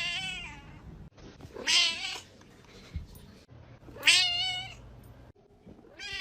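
A cat meowing repeatedly, loud drawn-out meows with a wavering pitch about every two seconds.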